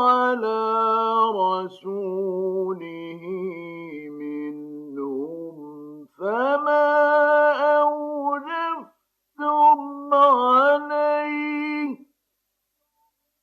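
Male Quran reciter chanting in the melodic mujawwad style, holding long drawn-out vowels with ornamented pitch bends. The voice breaks briefly twice and stops about twelve seconds in.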